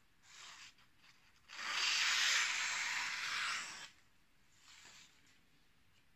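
A sheet of printer paper rustling and sliding over a wooden board as an axe head is shifted on it, loudest for about two seconds in the middle, with short fainter rustles before and after.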